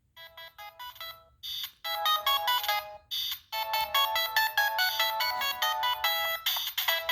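Siemens C72 mobile phone playing one of its preloaded ringtones through its loudspeaker: an electronic melody of short notes. It starts quietly and grows louder over the first two seconds, with a brief break about three seconds in.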